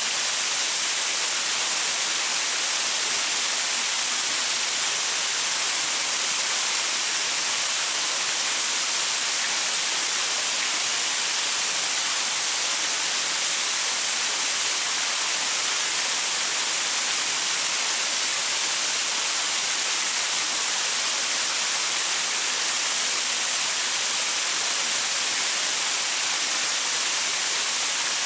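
Waterfall pouring over rocks: a steady, even hiss of falling water, strongest in the high range, with no change throughout.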